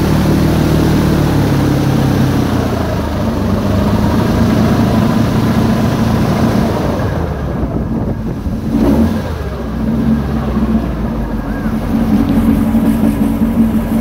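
Airboat's 500-horsepower engine and propeller running at speed. The engine note eases off about two to three seconds in, dips briefly in the middle, and picks up again to a steady run in the second half.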